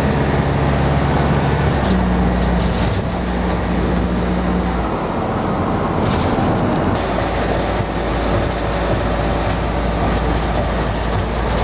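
Steady engine and road noise heard from inside a moving road vehicle. A low engine hum steps up in pitch about two seconds in and drops away around five seconds.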